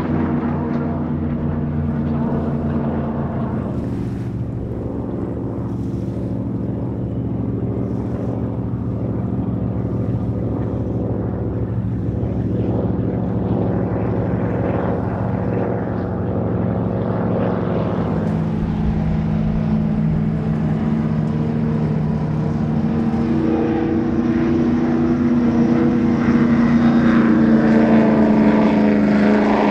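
High-performance powerboat engines running steadily at speed, the engine note shifting a couple of times and building a little louder and higher near the end.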